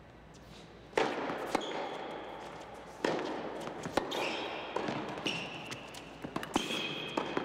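Tennis rally on an indoor court: sharp racquet hits and ball bounces about every one to one and a half seconds, echoing in the hall, with short high squeaks in between, typical of shoes on the court.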